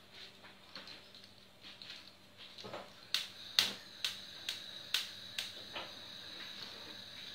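Gas stove burner's spark igniter clicking, about seven sharp clicks roughly two a second starting about three seconds in, with a faint steady high tone under them, as the burner is lit to heat the syrup.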